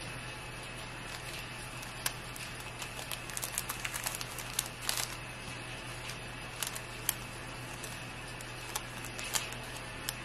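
Light crinkling and small sharp ticks of clear cellophane sleeves and paper sticker cards being handled as stickers are slipped into the bags, over a steady low hum.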